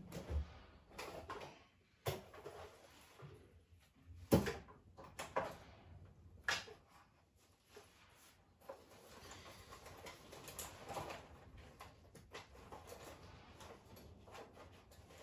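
Irregular clicks, taps and light knocks of small objects being handled, the sharpest in the first half, then quieter rustling.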